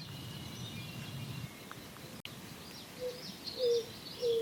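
Greater roadrunner song: a slow series of deep, dove-like coos, each a little lower than the one before, starting about three seconds in. Small birds chirp faintly higher up.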